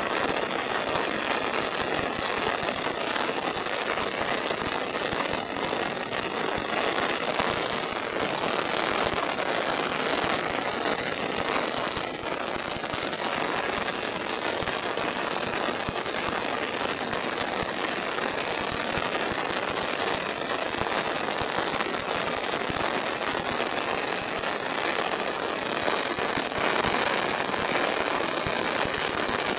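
Steady rain falling, an even hiss with no break or change.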